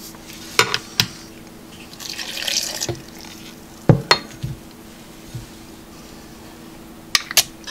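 Mango-pineapple punch poured from a glass measuring jug into a plastic blender cup of cubed mango: a short splashing pour of about a second. Sharp clinks and knocks of glassware and the cup being handled come before and after it, the loudest about four seconds in.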